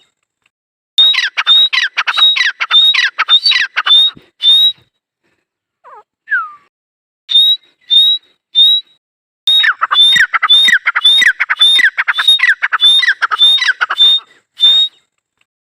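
Grey francolin (teetar) calling: a loud, shrill, rapidly repeated call, about two notes a second, in bursts with a short break in the middle.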